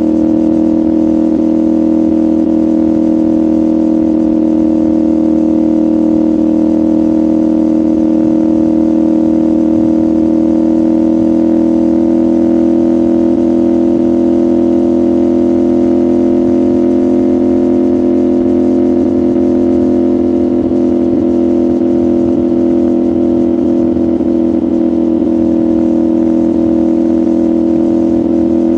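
CFMoto 450SR's 450 cc parallel-twin engine and exhaust running at steady, nearly unchanging revs, the pitch drifting only slightly lower and back up.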